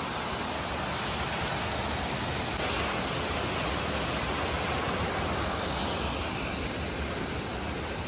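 Small waterfall pouring over rocks into a pool: a steady rush of falling water.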